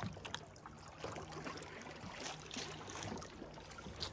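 Canoe on a river: faint water sloshing, with a few brief paddle splashes.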